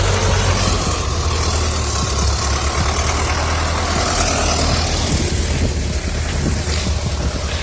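T-40AM tractor's air-cooled diesel engine running steadily.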